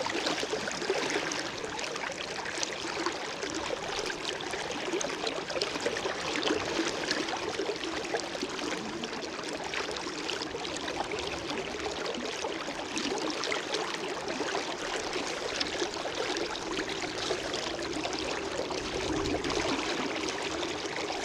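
River current flowing steadily, a continuous rush of moving water.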